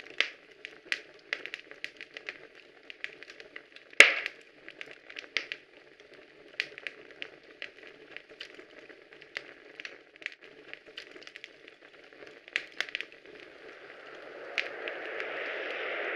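Sparse, irregular crackling clicks over a faint hiss, with one louder snap about four seconds in; a steady rushing noise swells in near the end.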